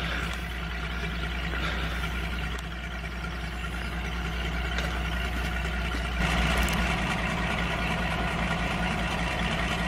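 Diesel locomotive engine idling just after starting up, a steady low drone; it becomes louder about six seconds in. The engine is a Warship-class diesel-hydraulic.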